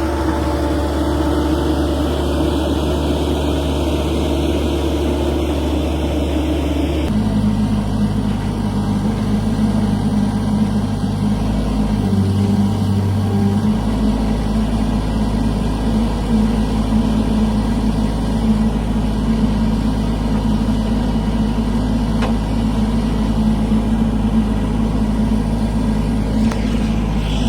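An engine running steadily, its pitch changing abruptly about seven seconds in.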